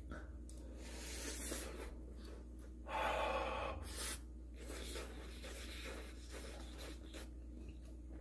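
A person eating: soft breathy exhales and mouth noises while chewing, the loudest breath about three seconds in, over a steady low room hum.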